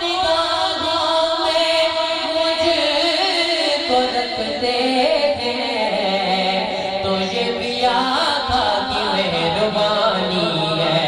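A man singing an Urdu naat through a microphone, drawing out long, slowly bending held notes with no clear words.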